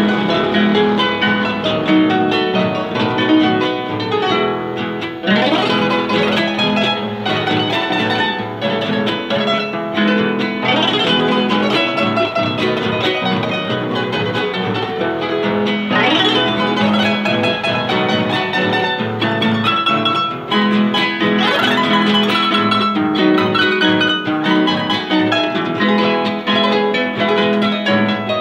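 Large harp played as a solo instrument, plucked melody over a bass line, with quick rising sweeps across the strings four times.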